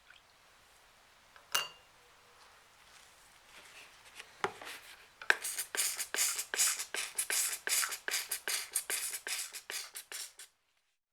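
A sharp metallic tap with a brief ring, a knock, then quick, even scrubbing strokes, about six a second, on a metal part during rust removal, stopping abruptly.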